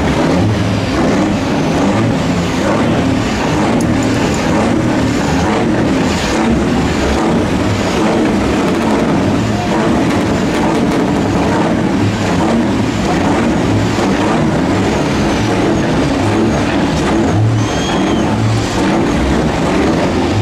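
Heavy diesel semi-truck engine running loud, its deep note swelling again and again as it is revved.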